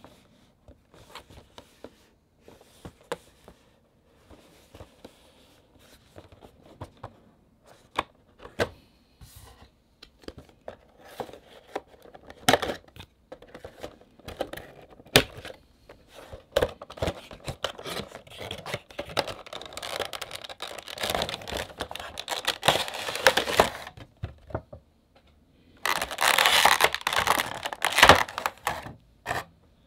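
A Funko Pop cardboard window box being opened by hand: scattered taps and scrapes of cardboard and flaps, then longer stretches of rustling and crinkling as the clear plastic insert is pulled out and worked off the vinyl figure. The crinkling is loudest near the end.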